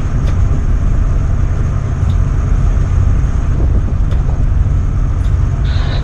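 Steady low rumble of a tugboat underway, its engines droning, mixed with wind buffeting the microphone.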